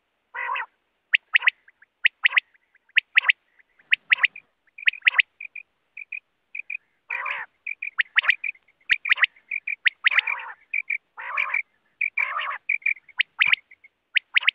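Common quail calling over and over: short, sharp high notes, mostly in quick pairs about once a second, mixed with a few longer, harsher calls near the start and in the second half.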